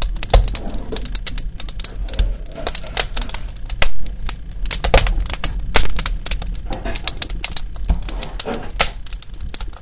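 Firewood burning in the open firebox of a brick stove, crackling and popping in dense, irregular snaps.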